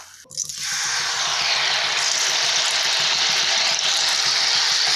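Freshly poured wheat-flour malpua batter frying in hot ghee, a loud, steady sizzle that starts suddenly a moment in.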